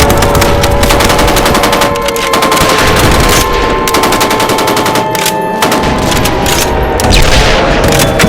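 Mock emergency-alert alarm: several steady, loud alarm tones held together under a dense, rapid crackle of gunfire-like bangs.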